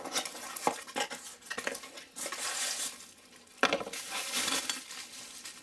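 Plastic bubble wrap and cardboard packaging crinkling and rustling as a bubble-wrapped glass spray bottle is taken out of its box and handled, in irregular crackles with scattered clicks. A sharp knock comes a little over halfway through.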